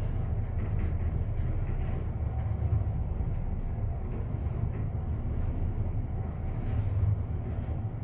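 Fujitec passenger lift car travelling upward, heard from inside the car as a steady low rumble.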